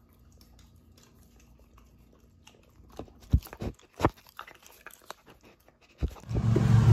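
A Weimaraner puppy chewing a crunchy treat, with a few sharp crunches about three to four seconds in. Near the end a loud, steady low engine drone cuts in abruptly.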